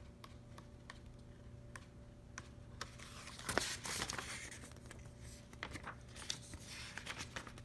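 Paper pages of a printed instruction booklet being leafed through and handled: light clicks and soft rustles, with a louder swish of paper about three and a half seconds in.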